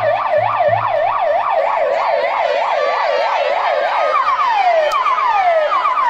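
Electronic siren sound effect played loud over the PA as a break in the dance mix: fast up-and-down yelp sweeps, about three a second, with a few bass thumps at first, changing about four seconds in to separate falling sweeps.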